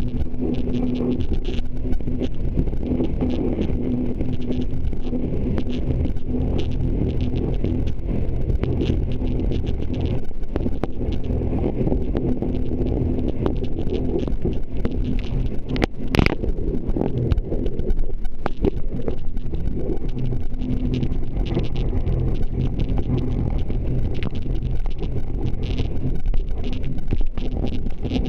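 Jet ski engine running steadily at full throttle, an even drone that holds one pitch, with scattered short thumps over a constant low rumble.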